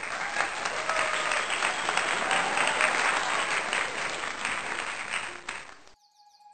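Applause: a crowd clapping densely, which cuts off abruptly about six seconds in.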